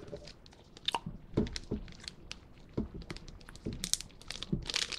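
Crunchy chewing of a freeze-dried sour gummy worm close to the microphone: a run of short, sharp crackles. Near the end, a plastic candy packet crinkles in the hands.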